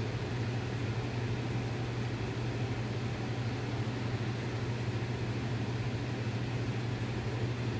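Steady low hum of a running machine under a soft, even hiss, unchanging throughout.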